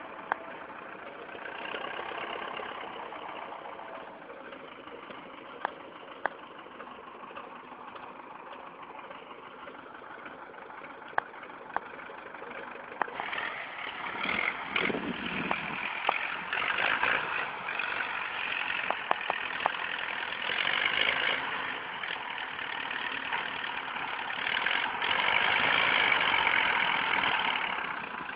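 Belarus tractor's diesel engine running hard under the load of a full sugarcane trolley, growing louder from about halfway. A few sharp clicks come in the first half.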